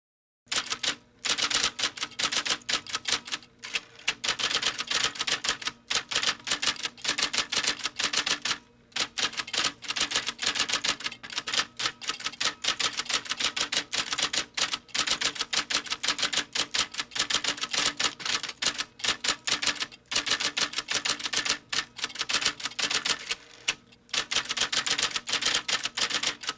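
Dense, rapid, irregular mechanical clicking in fast runs, broken by short pauses every few seconds.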